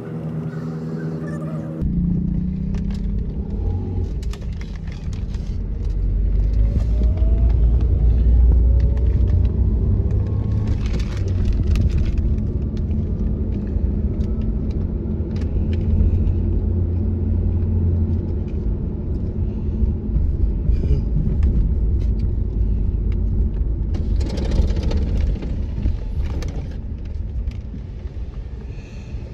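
Low road rumble and engine noise of a moving car, heard from inside its cabin at highway speed, with a couple of brief swells of road hiss along the way.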